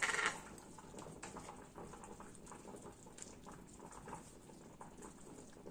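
Tablespoon scooping flour from a plastic tub and tipping it into a plastic measuring jug: faint scrapes and light taps, with a brief louder rustle right at the start as the tub is handled.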